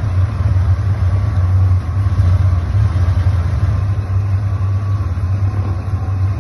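Chevrolet Opala straight-six exhaust rumbling loud, a steady deep note with no revving.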